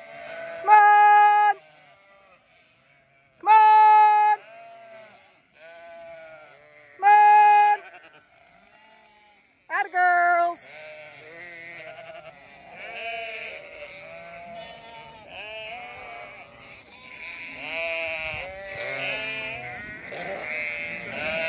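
Zwartbles sheep bleating. Four loud, long bleats come close by in the first ten seconds, then many overlapping bleats from the running flock build louder toward the end.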